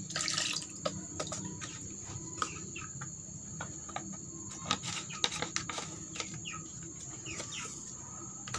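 Steady high trill of crickets with scattered small clicks and knocks. At the very start comes a brief splash of liquid poured from a bottle into a plastic bowl.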